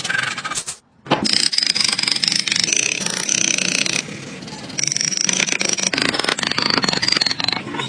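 A power tool running against wood, with a high whine over a rough, rapid rattle. The sound cuts out abruptly for a moment about a second in and drops quieter briefly near the middle.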